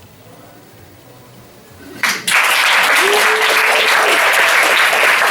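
Audience applause that breaks out suddenly about two seconds in after a quiet pause and then holds steady, with one held cheer from the crowd about a second later.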